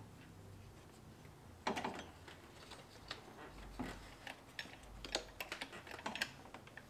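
Scattered light clicks and taps of hands and tools on metal while an accessory drive belt is worked onto the engine's pulleys. The sharpest clicks come near the start, near the middle and toward the end.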